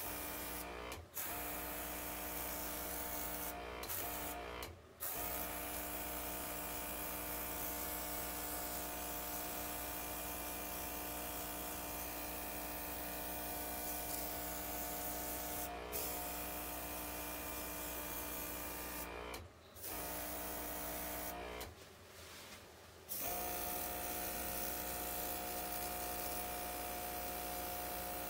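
Small airbrush compressor humming steadily, with the hiss of air through the OPAWZ airbrush as it sprays temporary pet ink. The sound stops briefly a few times, for about a second the longest, and then picks up again.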